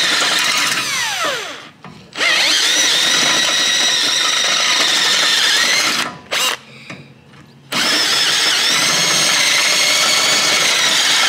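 Cordless drill with a step bit drilling out spot welds in a car's sheet-metal body panel, run in three long bursts. The motor's whine falls in pitch as it winds down to a short stop about two seconds in. It stops again for over a second around six seconds in, then runs on.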